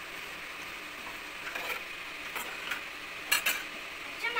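Chopped beans and carrots sizzling in hot oil as they are stirred with a metal spoon, sautéed before any water goes in. A few clinks and scrapes of the spoon against the pan, most of them in the second half.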